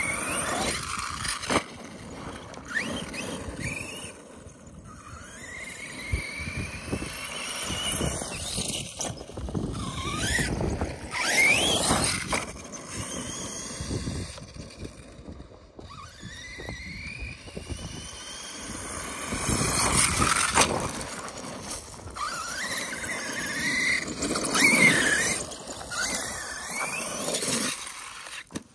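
Arrma Kraton 6S RC monster truck's brushless electric motor whining in repeated rising and falling sweeps as it speeds up and slows down, in several hard surges.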